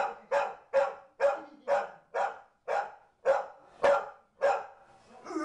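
Pit bull barking repeatedly in a steady rhythm, about two sharp barks a second.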